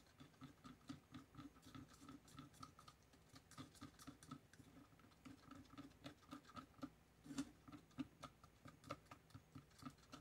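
Faint, rhythmic scraping and clicking of a stir stick going round a mixing cup, about four strokes a second, as yellow mica powder is stirred into thin-pour resin.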